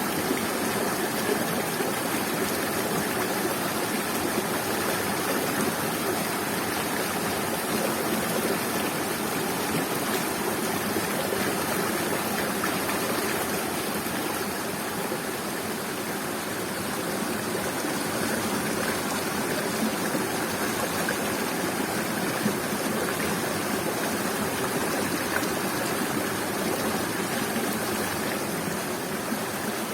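Waterfall: water falling and rushing in a steady, unbroken stream.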